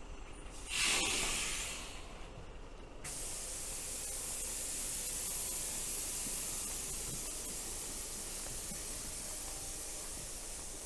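A hissing spray: a short, loud burst about a second in, then from about three seconds a steady high hiss that switches on suddenly.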